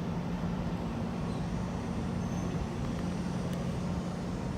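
Mercury 90 hp four-stroke outboard engine idling steadily, a constant low hum.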